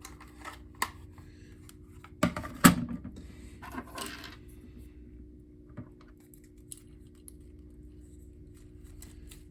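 Handling noises of small hard objects: a few scattered clicks and knocks, the loudest about two and a half seconds in, over a faint steady hum.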